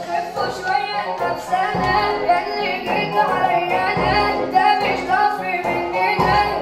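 Music playing: a melody over a steady beat, with some singing.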